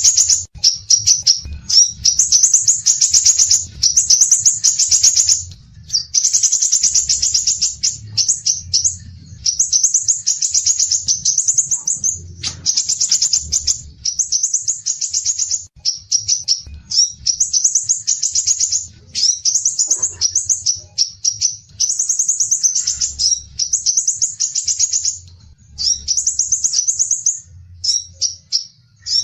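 Small songbird singing loud, rapid, high-pitched chattering phrases of a second or two each, one after another with short pauses.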